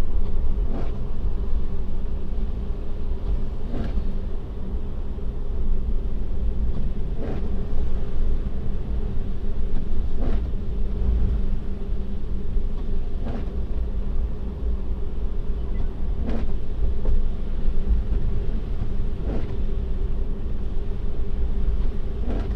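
Steady road and tyre rumble heard inside an electric Tesla's cabin while driving on a snow-covered road, with a steady hum and a faint tick about every three seconds.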